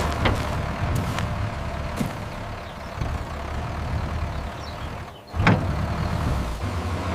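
Excavator engine running steadily, with sharp metallic clanks now and then. The sound drops out briefly about five seconds in, followed by a loud clank.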